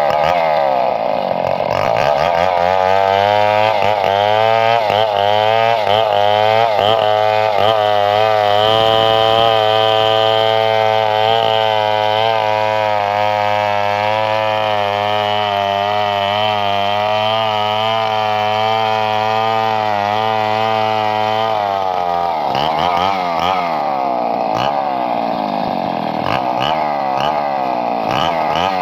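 Chainsaw engine running at high speed. Its pitch wavers up and down at first, holds steady for a long stretch in the middle, and shifts to wavering again about three-quarters of the way through.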